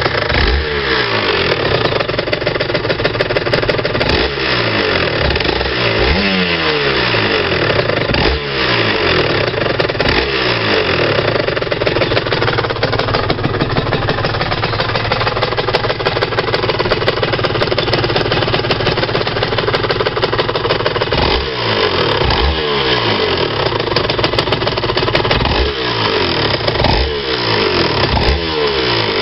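Aprilia RS 125's Rotax 122 single-cylinder two-stroke engine, revved repeatedly in short blips that each fall back, with a steadier stretch in the middle. It has the clinking rattle the owner is chasing.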